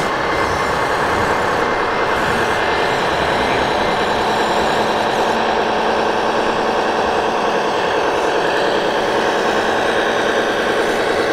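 Diesel truck engine sound played through the sound unit of a 1:14 Globe Liner RC model truck, running steadily as it drives.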